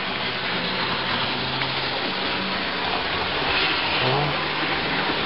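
HO scale model train running along the layout track: a steady electric motor hum with wheel and rail noise, the hum shifting slightly in pitch about four seconds in.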